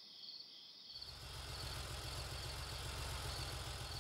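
Cartoon police car's engine running steadily as it drives off, fading in about a second in and slowly growing louder, with crickets chirping in the background.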